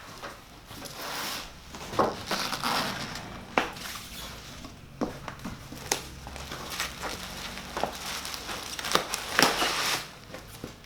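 PC case packaging being handled, rustling and crinkling, with scattered sharp clicks and knocks. The knocks are loudest about two seconds in and again near the end.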